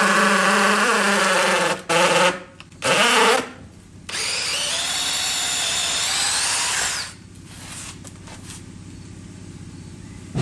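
DeWalt DCD709 cordless hammer drill in hammer-drill mode, boring into pine 2x4s with a wood auger bit. The motor runs under load with its pitch sagging, stops, and fires in two short bursts. It then runs for about three seconds with a higher whine that climbs near the end before cutting off.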